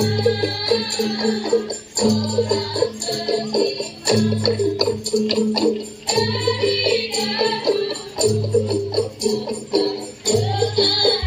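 A group of women singing a song over a beat of drums and jingling tambourine, heard through the venue's loudspeakers. A deep drum pattern repeats about every two seconds.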